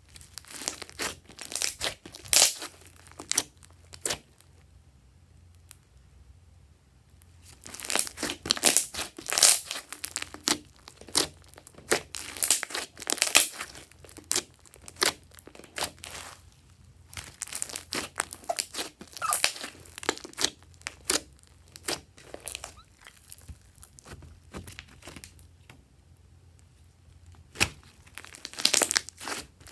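Hands squishing, pressing and stretching glossy slime mixed with small foam beads, giving wet crackling and popping from trapped air. It comes in bursts of several seconds, with two pauses of a few seconds.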